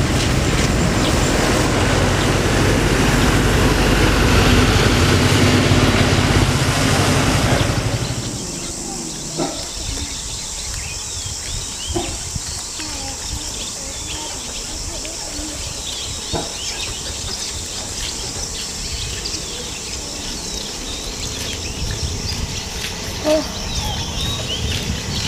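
An engine running steadily, which cuts off about eight seconds in. After that comes quieter outdoor ambience with small bird chirps, insects and a few sharp clicks.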